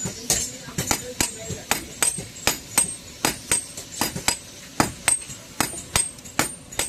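Hand hammer striking iron on an anvil in a steady rhythm of about three to four blows a second, each blow with a short high metallic ring.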